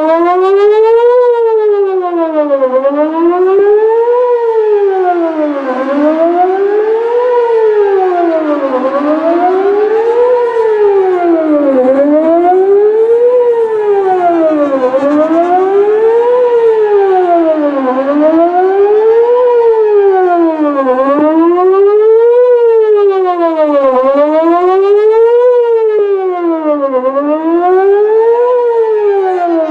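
Whelen WPS-4004 electronic outdoor warning siren sounding loudly, its pitch rising and falling evenly in a fast wail, one cycle about every three seconds. This is a routine siren test.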